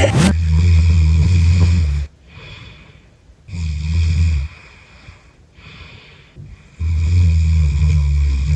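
A heavily pregnant woman snoring in her sleep: three loud snores, each one to two seconds long and a few seconds apart, with soft breaths between them. This is snoring that has come on with late pregnancy, at 35 weeks.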